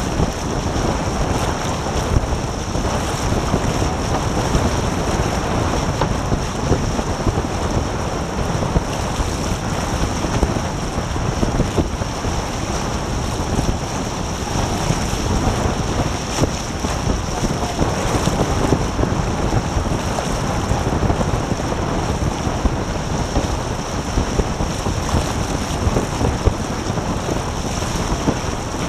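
Steady wind buffeting the microphone and water rushing past the hulls of a Taipan sports catamaran sailing at around 9 knots.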